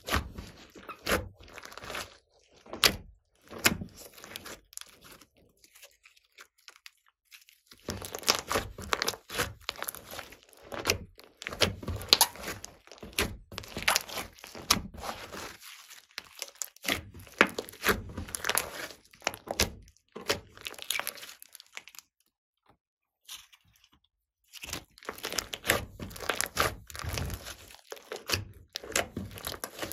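Hands kneading and squeezing a large mass of glossy slime: rapid wet clicks, pops and crackles. They come in runs, with a lull about five seconds in and a short pause about twenty-two seconds in.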